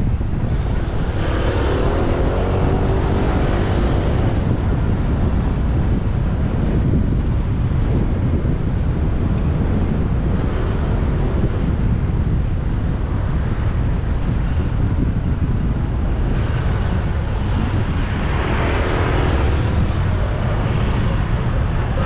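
Steady traffic noise of cars and motorbikes mixed with wind rumbling on the microphone, heard while riding along a busy road. Faint wavering tones rise out of it briefly near the start and again near the end.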